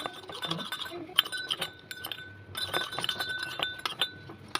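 A spoon stirring and clinking repeatedly against the sides of a small container, which rings faintly under the clicks.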